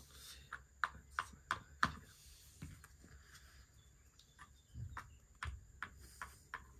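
Light clicks of board-game pieces tapped along the board from space to space: a quick run of about five taps in the first two seconds, then scattered single taps and a couple of dull thumps.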